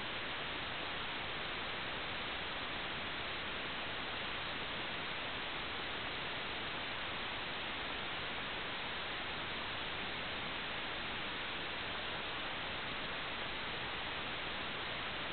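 Steady, even hiss of static that does not change at all, with no motor note or other event in it.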